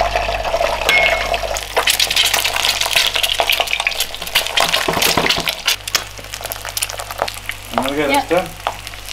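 An egg frying in a non-stick pan of hot oil: a loud sizzle full of spitting crackles starts about two seconds in as the egg hits the oil, then eases off after about six seconds. A silicone spatula nudges the egg in the pan.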